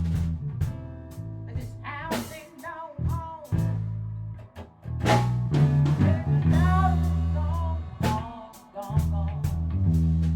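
A band rehearsing live: bass guitar holding low notes and a drum kit with cymbal crashes, under a lead line that bends up and down in pitch.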